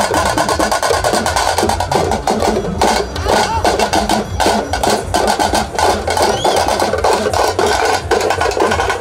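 Drums beaten fast and loud, a dense run of rapid strikes without a pause.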